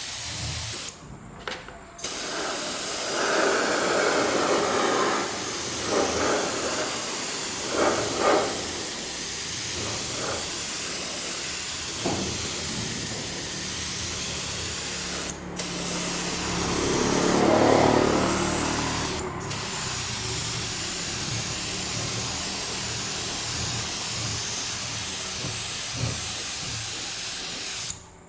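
Steady hissing spray of compressed air, broken by several abrupt cuts, with louder surges of the spray partway through.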